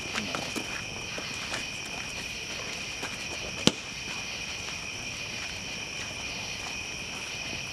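A steady chorus of night insects keeps up a continuous high trill, over a campfire crackling with scattered small pops. A single sharp loud pop from the fire comes a little past halfway through.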